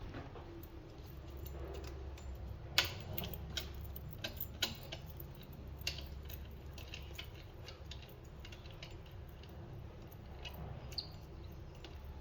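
Irregular light clicks and taps of parts and tools being handled during a washing-machine repair, the loudest about three seconds in, over a low steady hum.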